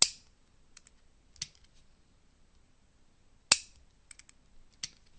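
Metal clicks from a Diana T06 air-rifle trigger unit, out of the gun, being tripped and re-cocked: two sharp snaps as the sear releases, about three and a half seconds apart, with lighter clicks between and after as the sear is pulled forward with a screwdriver.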